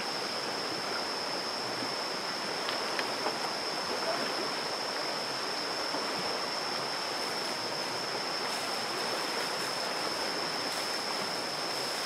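Shallow, fast river water running and splashing around an elephant bathing in it, with a steady high-pitched whine over the water noise.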